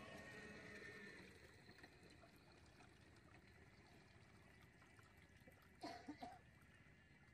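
Near silence: faint trickling water, with one short squeak about six seconds in.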